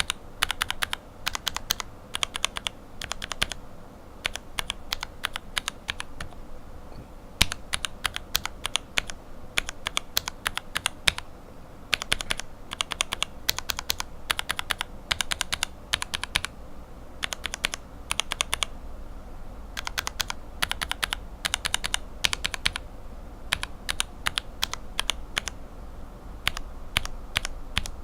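Lubed linear mechanical keyboard switches (Cherry bottom housings, Revo White stems and springs, lubed with Tribosys 3204) being typed on in quick runs of keystrokes separated by short pauses.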